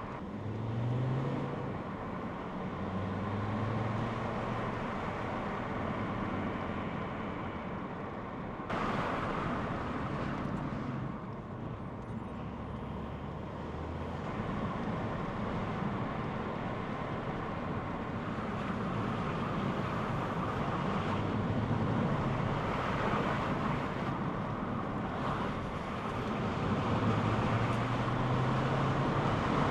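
A car on the road, its diesel engine pulling up through the revs several times over steady road and tyre noise, while hard stops are made to bed in new brake pads and discs.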